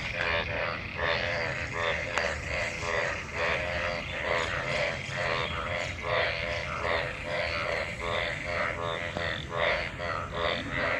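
A chorus of many frogs croaking in rain-filled water, short pitched croaks overlapping at about two or three a second without a break. It is a monsoon breeding chorus of calling frogs.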